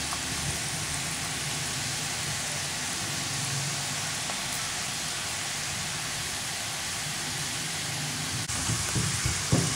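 Batter-coated peanuts deep-frying in hot oil: a steady, even sizzle, with a few soft knocks near the end.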